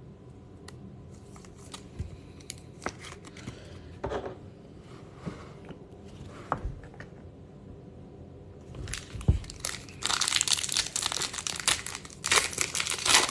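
A baseball card pack's wrapper is handled and torn open. There are scattered light clicks and rustles at first, then about nine seconds in comes a run of loud crinkling and tearing that lasts to the end.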